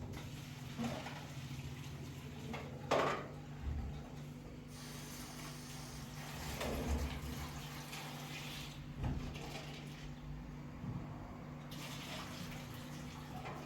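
Water running in two stretches of several seconds each, with a few knocks and clinks of kitchenware, the loudest about three seconds in, over a steady low hum.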